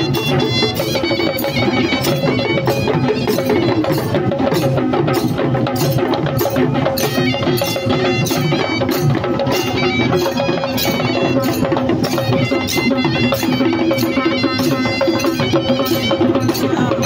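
Traditional Sri Lankan perahera percussion: drums and small metal cymbals beating a fast, steady rhythm, with a held tone running underneath.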